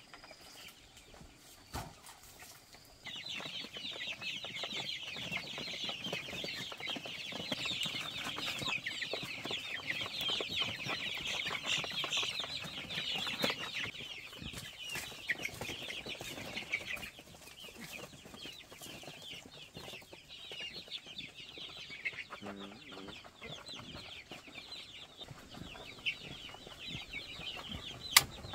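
Chickens clucking and calling in a busy chorus, which thins out about halfway through. A single sharp snip near the end, from shears cutting the coop's wire mesh.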